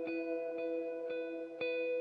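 Background music: plucked-string notes struck about twice a second over sustained ringing tones, in a gentle repeating pattern.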